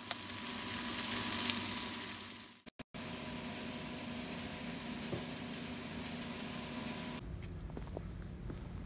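Pieces of fish pan-frying in a frying pan, a steady sizzling hiss that fades away after about two and a half seconds and is cut off by a moment of silence.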